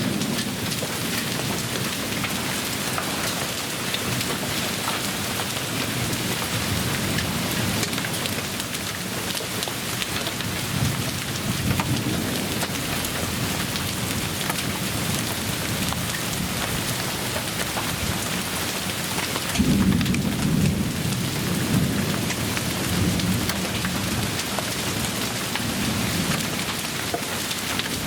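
Heavy storm rain falling steadily, with thunder rumbling low underneath; the loudest rumble comes suddenly about twenty seconds in.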